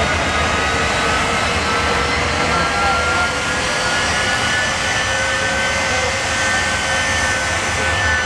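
The Shockwave semi truck's three jet engines running while the truck stands still. It is a steady rushing turbine noise with a high whine that creeps slowly up in pitch.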